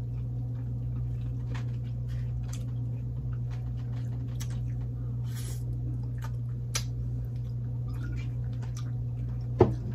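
Wet mouth sounds of someone eating an oxtail by hand: scattered small smacks and sucking clicks over a steady low hum, with a brief falling squeak near the end.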